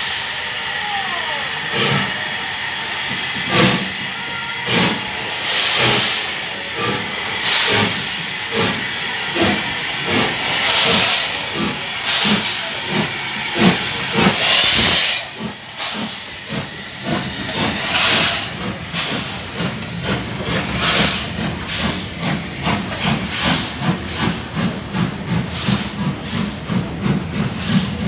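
LMS Jubilee class three-cylinder 4-6-0 steam locomotive 45690 pulling away, its exhaust beats coming quicker and quicker, with loud bursts of hissing steam. In the last few seconds, coaches roll past with a quick, even rhythmic clatter.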